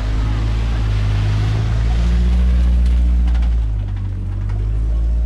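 A car driving through a shallow ford close by: its engine running with a low, steady note, with water splashing and hissing from the wheels. The sound swells as the car passes, loudest about two to three seconds in.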